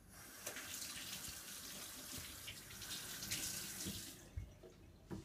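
Kitchen faucet running water into a stainless steel sink as raw meat is rinsed under it. The water stops about four seconds in, followed by a couple of soft knocks.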